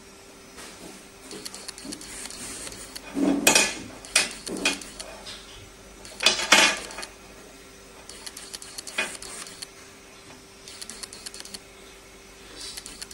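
Handling noise from a small sample being moved and set down on a microscope stand's base: short clattering knocks and scrapes, in a cluster about three to five seconds in, a louder pair about six and a half seconds in and a smaller one near nine seconds. A faint steady hum lies underneath.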